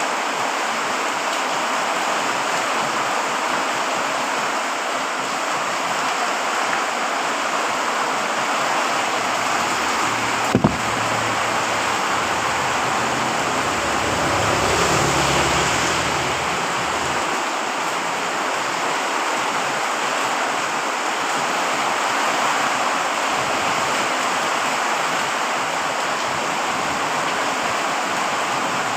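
Very heavy rain pouring down steadily as a dense, even hiss. A single sharp click about ten seconds in, and a low rumble that swells and fades a few seconds later.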